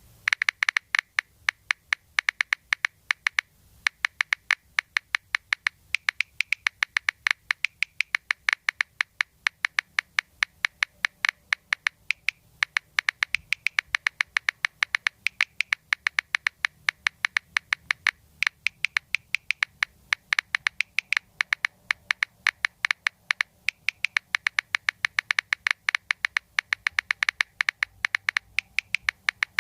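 Samsung Galaxy A7 (2018) on-screen keyboard key-press sounds played through the phone's speaker as someone types: a fast run of sharp, high clicks at about five a second, with a short pause about three and a half seconds in and a few briefer breaks.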